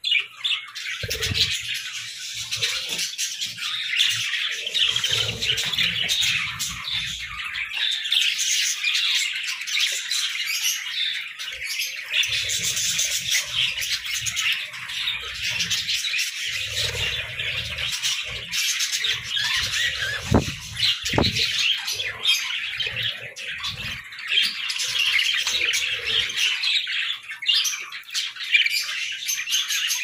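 A flock of budgerigars chattering and chirping nonstop, a dense high warbling of many birds at once. Occasional low bumps and a couple of sharp clicks about twenty seconds in.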